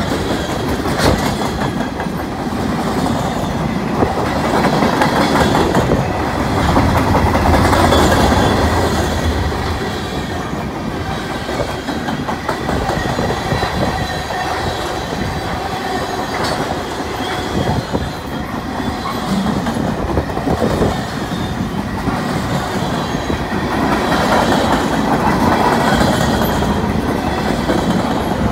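CN freight train's tank cars and centerbeam flatcars rolling past close by: a continuous rumble of steel wheels on rail with clickety-clack over the rail joints, swelling louder twice.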